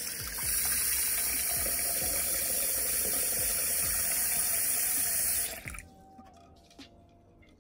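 Kitchen tap running into a small stainless steel saucepan of eggs in a steel sink, filling it with water for boiling. The water cuts off abruptly about five and a half seconds in.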